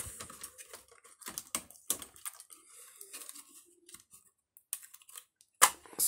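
Hands handling the parts of an opened laptop: irregular light clicks, taps and rustling, with a sharper click shortly before the end.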